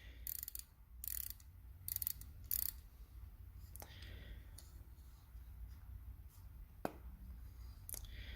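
Pocket watch crown being wound, its ratchet click making a few short bursts of fine clicking in the first three seconds, then a few faint single clicks. The winding never comes up against any resistance: the mainspring is broken.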